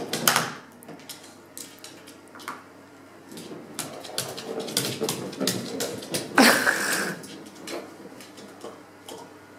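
A Basenji's claws clicking and skittering on a wooden floor as it moves around and pounces at an egg. Two louder short sounds stand out, one right at the start and the loudest about six and a half seconds in.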